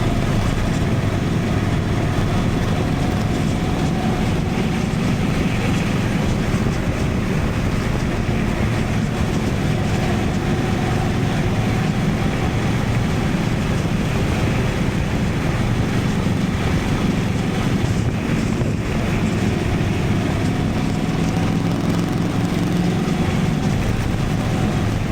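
Honda Transalp 750's parallel-twin engine running steadily at cruising speed, heard through an action camera's onboard microphone along with the rush of riding wind. Its pitch drifts gently up and down.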